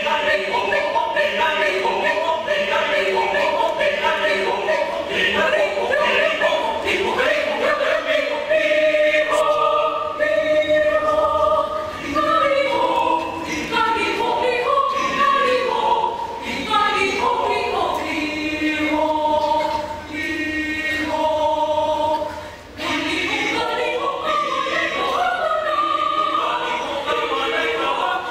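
Mixed choir singing in sustained multi-part harmony, phrase after phrase, with one short break about three-quarters of the way through.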